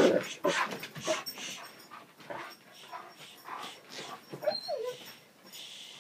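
A dog whining, whimpering and panting in short, excited bursts, eager to chase a deer. A loud burst comes right at the start, and a falling whine about four and a half seconds in.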